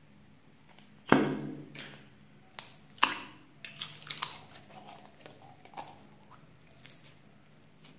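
A small plastic can-shaped slime container being opened and emptied by hand: a sharp pop about a second in, then a run of irregular clicks and crackles of the plastic and the sticky red slime as it is pulled out.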